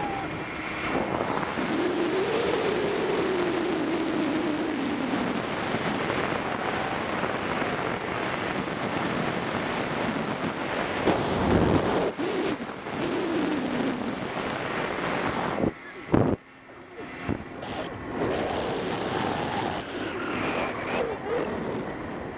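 Wind rushing over the microphone of a camera riding a zipline during a fast descent along the cable, a steady noise that cuts out briefly about sixteen seconds in.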